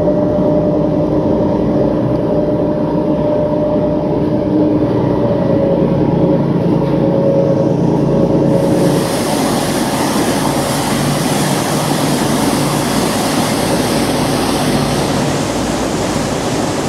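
Motor boat's engine running with a steady drone, muffled inside the cabin, over the wash of water along the hull. About eight and a half seconds in, it gives way to a loud rushing of churned wake water and wind in the open, with the engine still running underneath.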